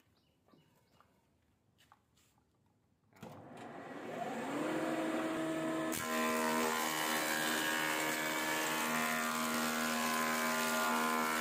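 Near silence with a few faint clicks, then about three seconds in the motor of an electric thickness planer starts, its whine rising in pitch and settling into a steady hum. About six seconds in a harsh, loud cutting noise joins it as the cutter head planes a thick wooden board.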